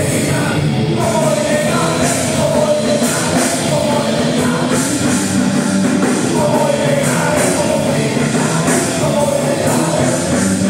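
A punk rock band playing live, loud and steady: distorted electric guitars and drums with cymbal hits under a sung, shouted vocal line.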